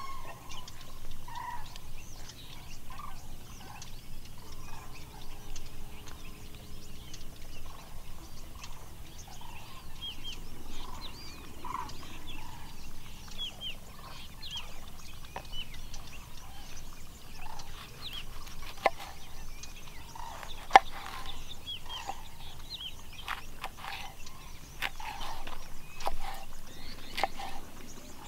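Birds calling: repeated short calls like domestic fowl, joined by high chirps of small birds, with several sharp knocks in the second half.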